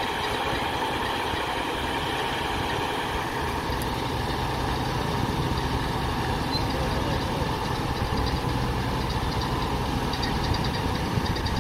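Truck-mounted crane's engine idling steadily with a low, even hum.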